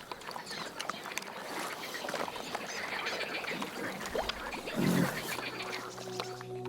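Ducks quacking and calling in a flock, many short calls overlapping, with one louder, lower call about five seconds in. Soft music comes in near the end.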